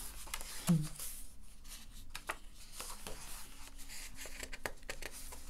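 Pages of a hardcover picture book being turned and smoothed flat: paper rustling with light taps and clicks. A brief sound of the reader's voice comes under a second in.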